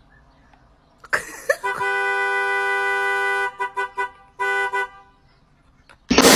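Car horn sounding from a car whose driver's seat is taken by a dog with its paws on the steering wheel. It gives one steady blast of about two seconds, a few quick short toots, then one more short blast.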